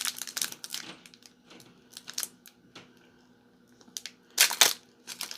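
Foil wrapper of a Pokémon booster pack crinkling and rustling in the hands: scattered small crackles, with two loud crackles in quick succession near the end.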